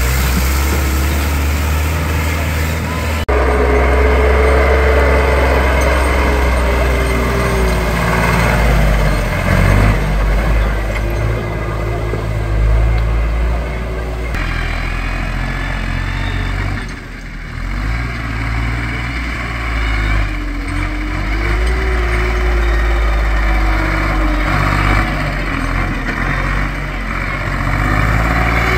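Tractor diesel engines running and revving up and down under load, with sudden changes from one tractor to the next. Crowd voices underneath.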